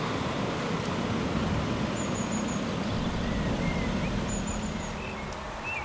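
Rumble of a tram fading as it moves away from a level crossing, with birds chirping: two quick runs of four high notes and a few lower calls.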